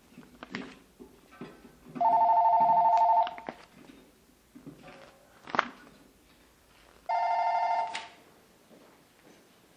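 Telephone ringing twice, a warbling electronic two-tone ring lasting about a second each time, the rings about five seconds apart. A sharp click comes between the two rings.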